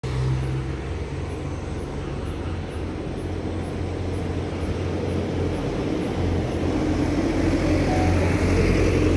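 Steady low engine hum with traffic-like rumble, swelling slightly near the end.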